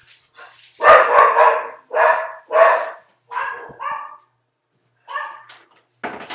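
A dog barking repeatedly, about seven loud barks in an irregular run that starts about a second in.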